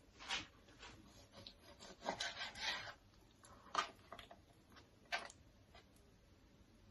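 Kitchen knife trimming fat from raw chicken breast: a few short, faint scraping strokes against the cutting board, the longest cluster about two seconds in.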